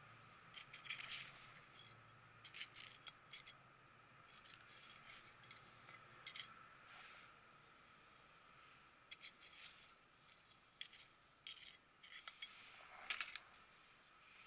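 Small metal hand trowel scraping and digging into gritty potting mix, in short bursts of crunching and rattling grit, several separate clusters with pauses between them.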